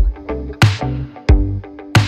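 Background music with a steady beat of drum hits and short plucked notes.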